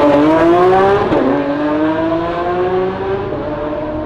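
Lamborghini supercar engine accelerating hard from a standing start, its pitch climbing, dropping once at an upshift about a second in, then climbing again as it pulls away and fades.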